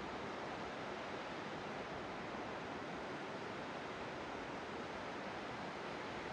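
Steady, even hiss with no distinct events or changes: a constant background noise with no clear single source.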